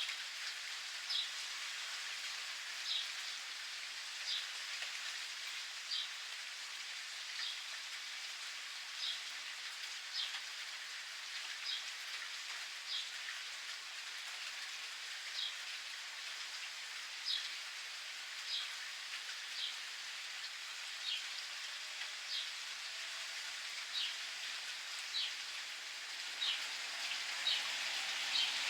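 Steady rain pattering, with a bird repeating a short, high chirp about once every second or so, each chirp dropping slightly in pitch.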